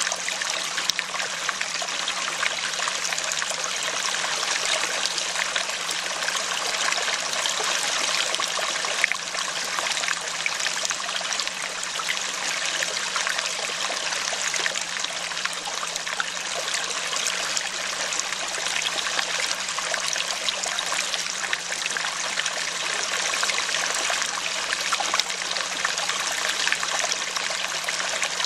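Steady running water, a stream trickling and flowing without a break, used as the masking sound of a subliminal track.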